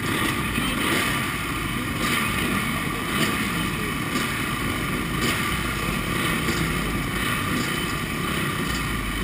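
Several motocross bike engines running at idle close by, a steady dense drone with small swells in level.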